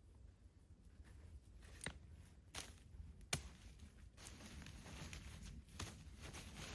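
Faint clicks and rustling, with a few sharp ticks near the middle and a denser rustle toward the end, over a low steady rumble.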